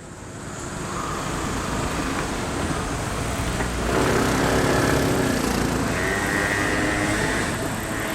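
Road traffic: a car passing, with engine and tyre noise, loudest about four to five seconds in.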